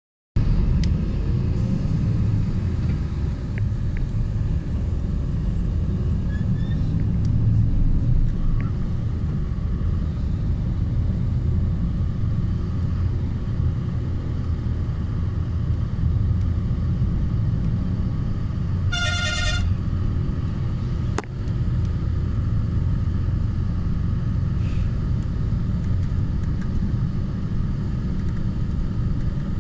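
Steady low rumble of a moving road vehicle and its tyres. About two-thirds of the way through, a vehicle horn gives one short toot.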